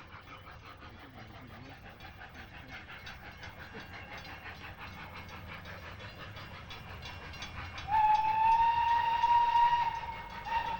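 Steam tank locomotive F 251 approaching, its exhaust beats in a fast rhythm growing steadily louder. About eight seconds in it sounds a loud steam whistle that slides slightly up in pitch, breaks off briefly, and then blows again.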